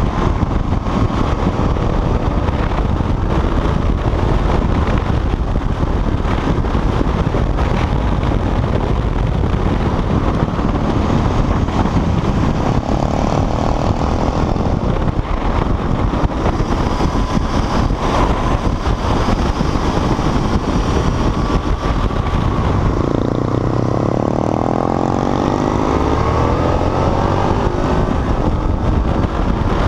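Motorcycle engine running at road speed under steady wind rush on the microphone, its pitch climbing as it accelerates about three-quarters of the way through.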